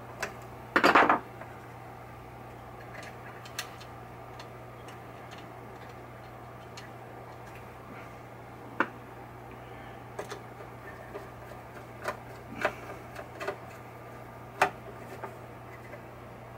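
Scattered small metallic clicks and taps from a screwdriver working the screws of a pinball chime box's coil bracket, with one louder clatter about a second in, over a steady low hum.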